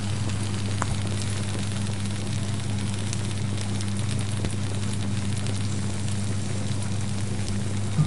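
Food sizzling in a hot pan, a steady hiss with scattered small crackles and pops, over a steady low hum.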